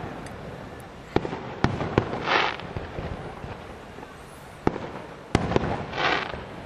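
Fireworks display: aerial shells going off with about four sharp bangs, two of them soon followed by a burst of crackling hiss lasting about a second.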